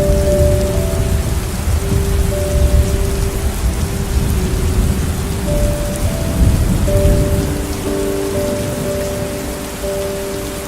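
Steady rain falling with rolling thunder rumbling low, the rumble easing in the last few seconds. Soft held musical notes that change pitch every second or so sound over the rain.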